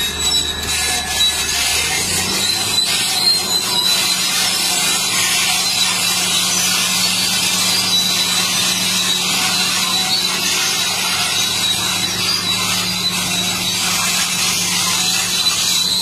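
Caterpillar D8N crawler bulldozer driving: its diesel engine runs steadily under a continuous high squeal and rasp from the steel tracks. The engine's low note shifts about two seconds in.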